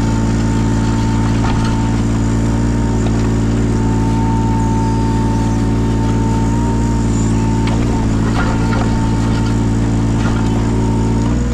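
Yanmar 017 mini excavator's three-cylinder diesel engine running steadily, with a thin steady whine over it. The engine note dips briefly a few times, and there is faint clatter about eight seconds in.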